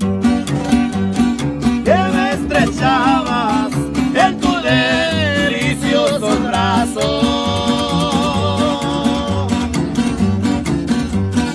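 Ranchera music played live on acoustic guitar, twelve-string guitar and tololoche (upright bass): bass notes and strummed chords in a steady, even rhythm. A man's voice sings over it from about two seconds in until near the end.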